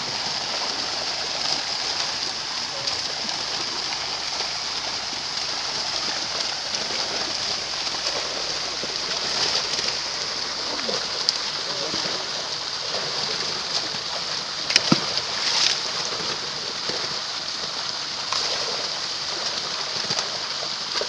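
Continuous splashing and churning of muddy water as fish thrash inside a net being gathered by people wading in it. A couple of sharp knocks about fifteen seconds in are the loudest moment.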